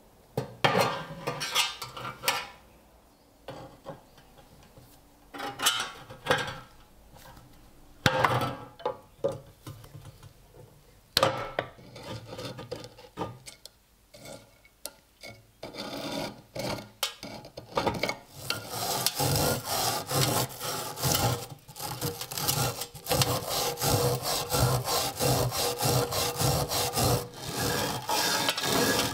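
A flat steel scraper scraping wet, loosened rust off an iron bayonet blade in separate, irregular strokes. A little past halfway it gives way to a wire brush scrubbing the blade in fast, even back-and-forth strokes.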